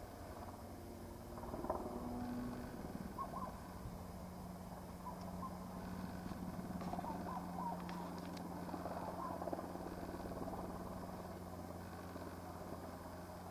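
Distant light helicopter running as a steady low hum while it flies low over the grassland, with scattered short bird calls over it, mostly in the first few seconds and through the middle.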